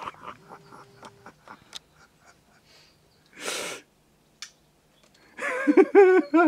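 Scattered light clicks, a short breathy rush of air about three and a half seconds in, then a person's wordless voice with a rising and falling pitch near the end.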